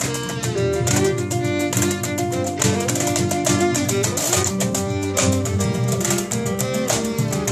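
Acoustic folk string band playing: a bowed fiddle melody over strummed acoustic guitars and an upright bass.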